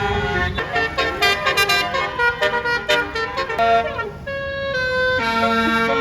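Bus telolet horn, a multi-tone air horn playing a tune: quick-changing notes, then held chords from about four seconds in.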